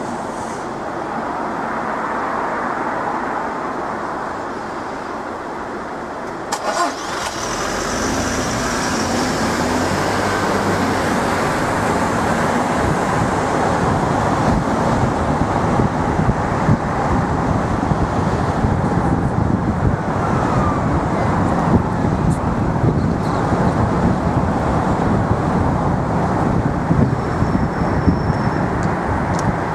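Road noise from inside a moving car: quieter while stopped at a junction for the first several seconds, then after a few clicks about seven seconds in a low engine and tyre rumble comes up as the car pulls away and drives on through traffic.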